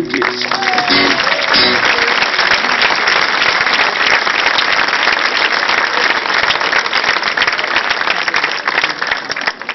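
Audience applauding at the end of a song, with the acoustic guitars' last notes fading under the clapping at first. The applause dies down near the end.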